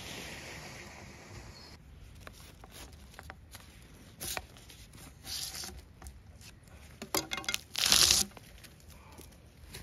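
Bark being pried up with a blade and ripped off a log felled the day before: a series of short tearing rips, the loudest about eight seconds in.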